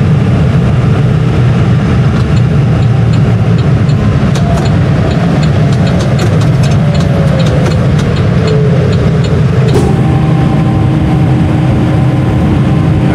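Tractor engine running steadily under load, towing a 5-cubic-metre tank, heard close and loud, with scattered clicks and rattles. About ten seconds in, a new steady tone joins the engine note.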